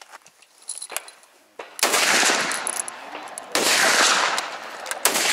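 Three heavy rifle shots on a shooting range, about a second and a half apart, each a sudden report with a long echoing tail; a few light clicks come in between.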